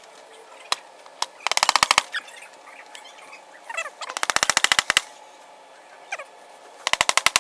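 Ratchet wrench clicking in three short bursts of rapid, even clicks, with a couple of single clicks before them.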